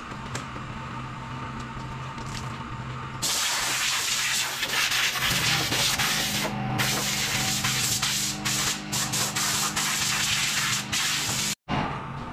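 Water spraying from a garden hose nozzle onto a pontoon boat's aluminium railings: a loud steady hiss starting about three seconds in, with a few short breaks, cut off abruptly near the end. Before it, a steady low hum.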